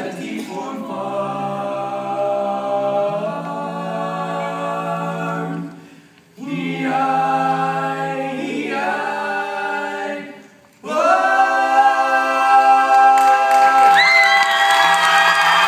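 High school choir singing a cappella in three long sustained phrases, ending on a loud held chord. Near the end, cheering and applause break in over the final chord.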